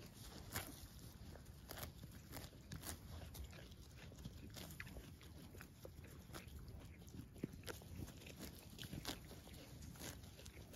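Zwartbles ewe grazing close by, tearing and cropping grass in irregular, crisp snaps.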